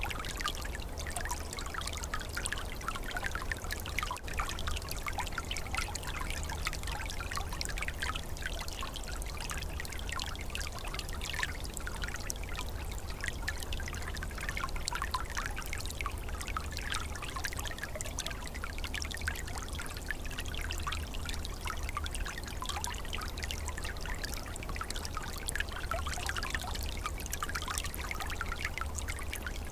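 Small stream flowing and trickling steadily, water splashing and gurgling over stones, with a steady low rumble underneath.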